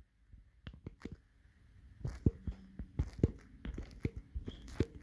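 A portable DAB+ radio handled and its buttons pressed to scroll the station list: a string of irregular short clicks and light knocks, sparse at first and coming more often after about two seconds.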